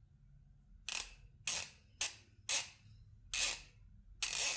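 Craftsman V-series 1/2-inch drive ratchet clicking in six short bursts as the handle is swung back and forth, working freshly applied oil down into the ratchet head.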